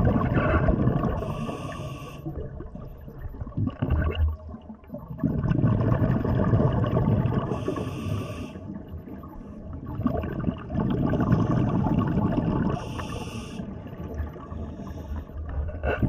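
Scuba diver breathing through a regulator underwater: three long bubbly exhalations about five seconds apart, each with a brief hiss.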